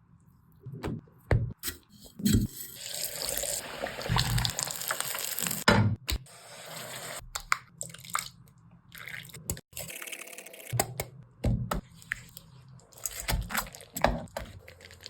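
Kitchen food-preparation sounds: a watery hiss lasting a few seconds, starting about two seconds in, with scattered knocks and clatters throughout.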